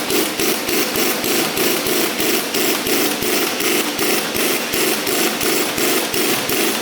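Rapid, regular hammering, about four strikes a second.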